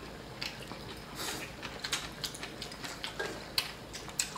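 Quiet eating sounds: a string of short, irregular clicks and smacks, roughly two a second, from two people chewing and eating with chopsticks from small bowls.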